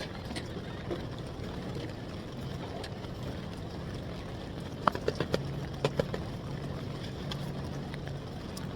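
Steady noise of ocean surf and wind on the beach. A low engine hum joins about halfway through, and a quick run of sharp knocks comes about five seconds in.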